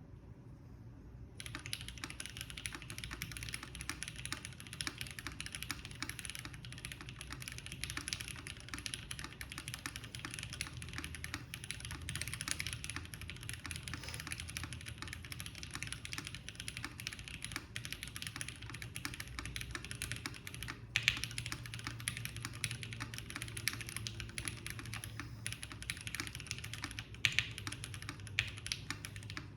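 Continuous typing on a Maker Scarlet TKL mechanical keyboard with lubed JWick Black linear switches on a POM plate and ePBT keycaps: a dense, steady stream of keystroke clacks that starts about a second and a half in, with a few louder strikes in the second half.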